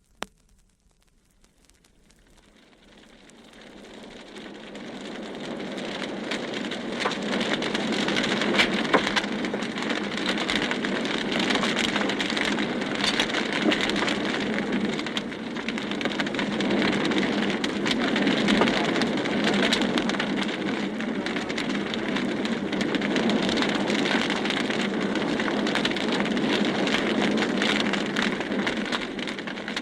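Large wood fire crackling and burning, a dense steady crackle of popping wood that fades in over the first several seconds and fades out at the end: a sound effect of a burning at the stake.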